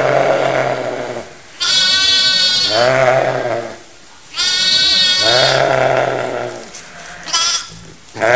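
Young lambs bleating loudly and repeatedly. There are long wavering bleats about every two and a half seconds, with a short one near the end.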